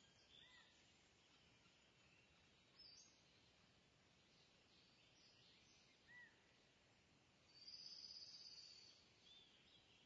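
Near silence with faint background bird chirps: a few short, high chirps and a brief high trill about eight seconds in.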